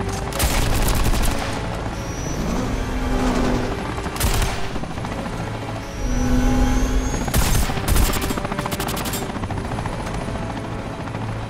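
Helicopter running steadily, with bursts of machine-gun fire from the helicopter: a rapid volley about half a second in, a short one near four seconds, and several more between seven and nine seconds.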